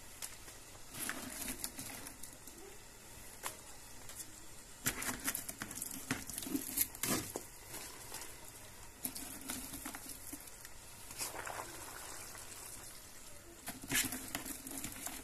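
Dry, brittle pieces of old beeswax honeycomb crackling and crunching in irregular bursts as they are handled and pushed down into a pot of hot water to melt.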